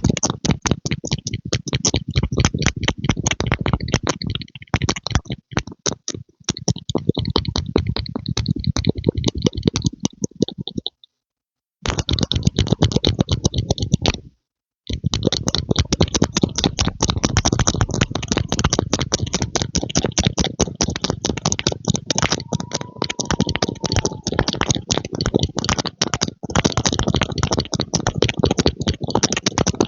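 Close-up ASMR pumping sounds: rapid, dense clicking that stops dead twice for about a second near the middle.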